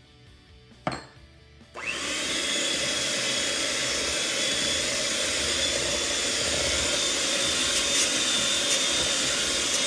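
An electric hand mixer switched on about two seconds in, briefly rising in pitch as it spins up, then running steadily as it beats eggs into creamed butter and sugar. A single sharp click comes just before it.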